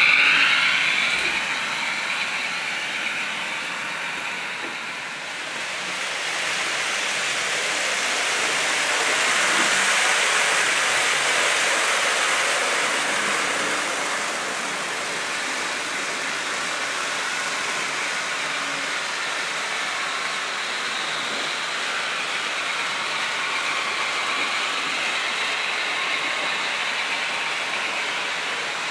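Model electric trains running on the layout's track: a steady rolling hiss of wheels and motors, which swells for several seconds after the first few as a train passes close, then settles.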